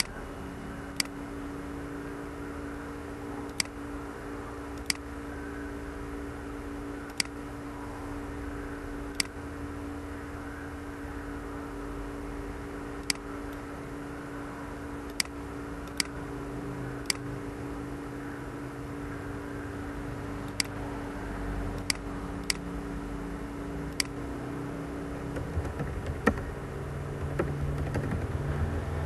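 Computer mouse clicking about a dozen times at irregular intervals over a steady low hum, then a quick run of keyboard typing near the end.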